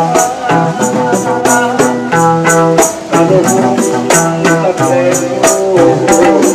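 Street musicians playing a song: a guitar and a bass line over a steady beat with bright, jingly percussion hits.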